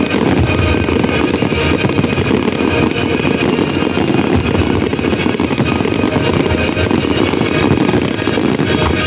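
Fireworks barrage, with many explosions running together into one continuous rumble.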